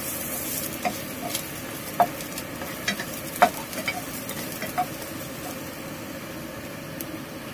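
Garlic sautéing in hot cooking oil in a pan, with a steady sizzle and a few sharp clicks as a utensil stirs it against the pan.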